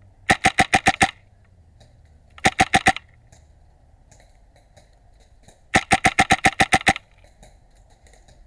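HPA-powered airsoft rifle firing three bursts of rapid shots, about seven a second, the longest burst about two-thirds of the way through.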